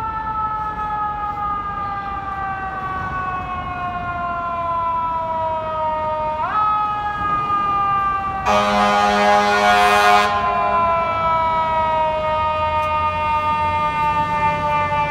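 FDNY fire engine siren winding slowly down in pitch, quickly spun back up about six seconds in, then winding down again, getting slightly louder as the engine approaches. About eight seconds in, a loud blast of the fire engine's air horn lasts about two seconds.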